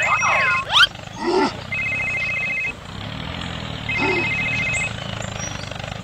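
A tractor-engine sound effect drones steadily and low while a phone ringtone rings three times, about a second each, with short cries in between.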